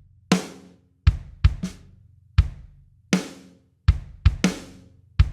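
Bass drum and snare drum playing a slow beat: low bass-drum thuds alternate with snare hits that ring out and fade over about half a second. There are about ten hits in all.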